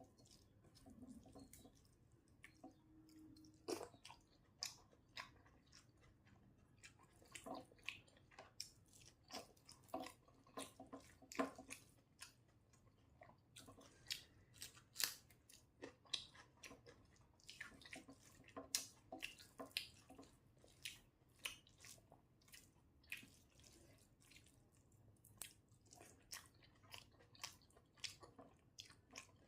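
Close-up eating sounds: a person chewing a rice-and-dal meal, with many short, irregular mouth clicks.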